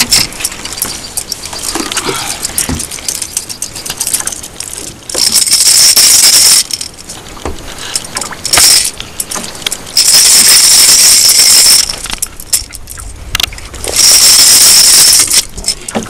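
Light metallic clinking and rattling of pliers, a lip grip and the lure's hooks while a small peacock bass is unhooked by hand. Four loud bursts of hiss, each a second or two long, come over it from about five seconds in.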